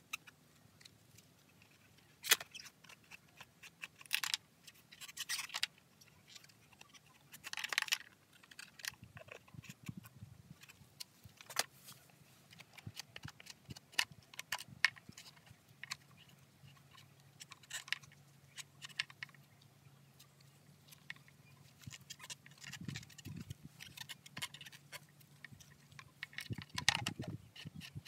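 Gloved hands wiping and handling a Stihl MS170C chainsaw's plastic housing with a cloth rag: irregular rubbing swishes with small clicks and knocks as the saw is gripped and turned. A faint steady low hum sits under it in the second half.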